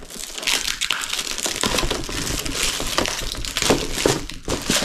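Plastic wrapping and packing material crinkling and rustling as a boxed plastic model kit is handled, with many small crackles and clicks.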